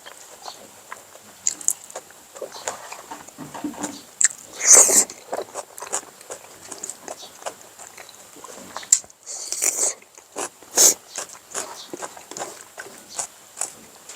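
A person chewing and biting food close to the microphone: many small wet mouth clicks, with a few louder bites scattered through.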